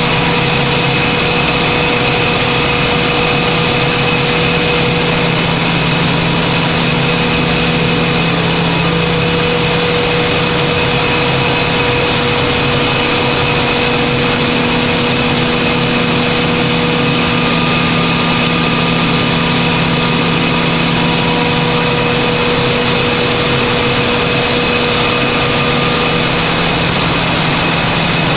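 Compressed-air equipment running steadily: a loud, even machine noise with a constant hum and several steady whining tones.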